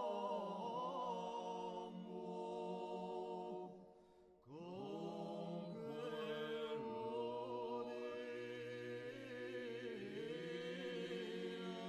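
Background music: unaccompanied voices singing a slow chant in long held notes, with a short break about four seconds in before the voices come in again.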